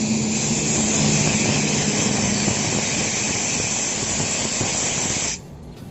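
Compressed air blasting out of an air line in a loud, steady hiss over a low hum. It cuts off abruptly about five seconds in.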